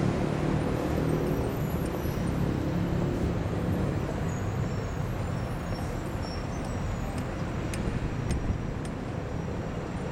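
City road traffic: a passing vehicle's engine hum fades over the first few seconds, then steady traffic noise continues.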